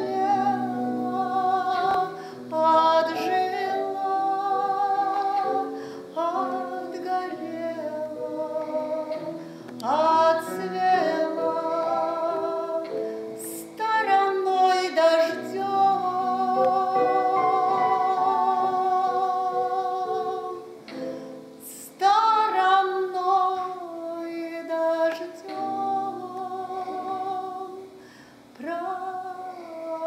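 A woman singing in phrases of long held notes with a wide vibrato, accompanied by a Casio Celviano digital piano.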